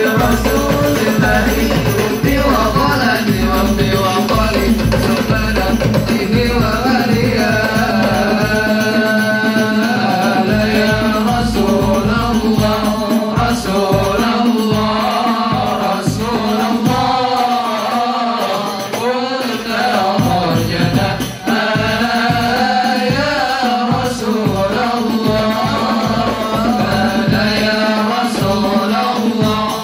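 Sholawat sung by a solo voice over a hadrah group of rebana frame drums beating a steady, repeating rhythm.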